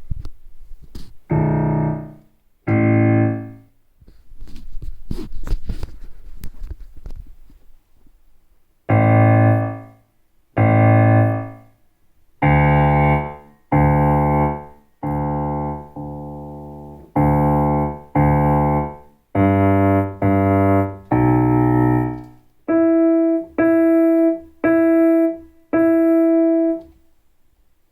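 Kawai CA99 digital piano sounding through its built-in speakers: separate chords and low notes, each held about a second, then one note struck four times near the end. A few seconds of noise without pitch come between the second and third chords. The owner hears a buzz from the top-left speaker when playing.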